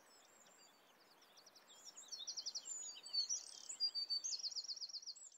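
Small birds chirping and trilling, many calls overlapping over a soft hiss. The calls get louder and busier about two seconds in, with quick runs of evenly repeated notes.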